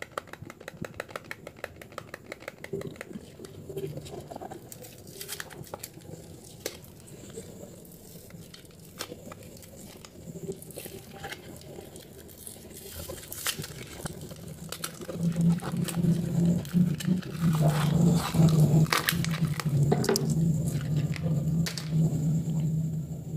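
Paper wrapper of a soap bar being torn and peeled open by hand, with repeated crinkling and rustling. About two-thirds of the way in, a low steady hum joins and runs under the crinkling.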